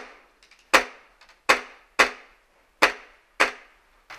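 Airsoft gas pistol firing six single shots, each a sharp crack with a short ring, about one every half to three-quarters of a second, with faint ticks between.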